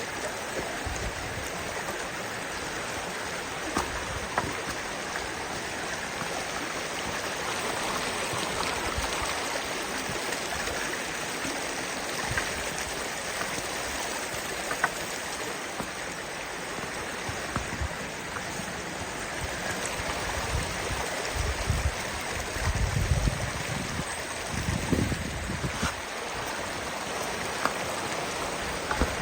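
Kanarra Creek's water rushing steadily over rocks. A few low rumbles and light knocks come through in the second half.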